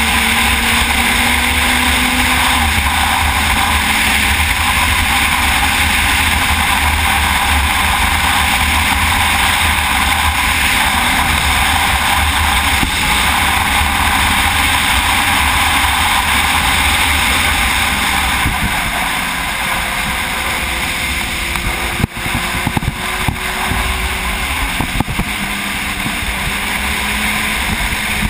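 Sport motorcycle at road speed: steady wind rush over the bike-mounted microphone with the engine running underneath. The engine eases off about two-thirds of the way through, and a few short knocks follow soon after.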